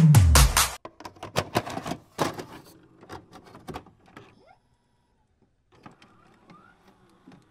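Music slides down in pitch and stops within the first second, like a tape slowing to a halt. Then comes a run of sharp mechanical clicks and clunks from a VHS tape deck sound effect, thinning out to a near-silent pause and a few faint clicks near the end.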